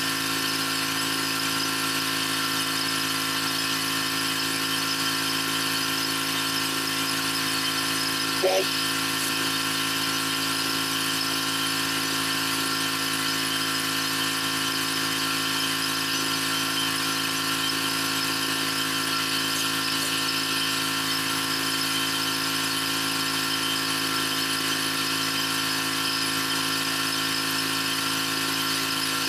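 Pressure washer running steadily while a rotary surface cleaner sprays brick pavers: a constant mechanical whine over a steady spray hiss. There is one short click about eight and a half seconds in.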